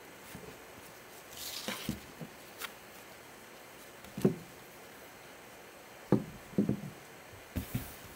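Hands in gloves handling trading-card packs and a plastic card holder on a table: a brief rustle, then scattered light knocks and taps.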